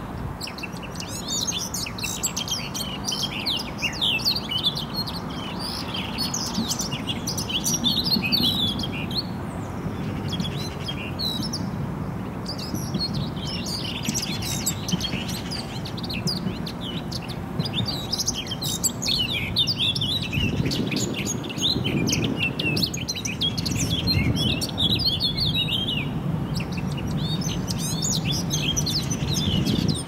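Eurasian blackcap singing: phrase after phrase of quick warbling, with short pauses between them, over a steady low rumble.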